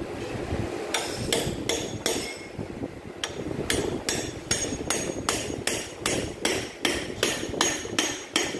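Repeated metal-on-metal hammer blows, about three a second, on a tool held against the casing of a twin-lobe compressor as it is knocked apart for dismantling. The blows start about a second in, pause briefly, then keep an even pace, each ringing briefly.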